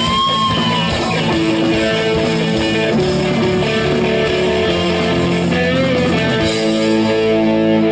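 Live rock band playing: electric guitars, bass guitar and drum kit. About six and a half seconds in the drums drop out and the guitars hold a ringing chord.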